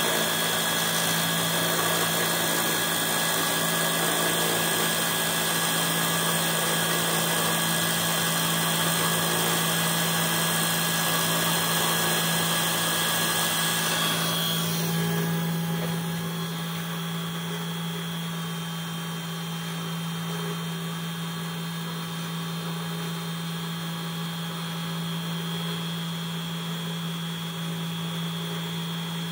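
Spindle of a 1310 CNC engraver running steadily with a constant whine while its small end mill cuts a brass plate, with a dense cutting hiss. The spindle is driven by an offset motor with a 3:1 reduction for metal. About fifteen seconds in, the sound becomes quieter and duller, but the machine keeps running.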